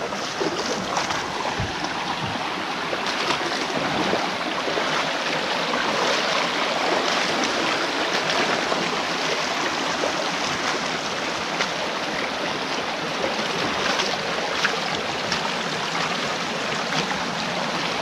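Shallow, rocky jungle stream running over stones, a steady rush of water.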